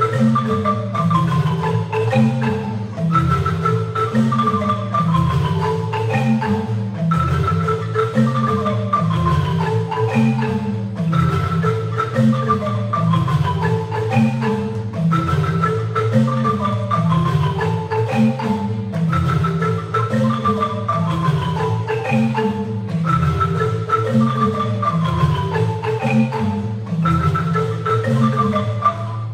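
Marimba ensemble playing a repeating groove: a steady low bass line under a melody that starts high and steps downward, the phrase coming round about every four seconds.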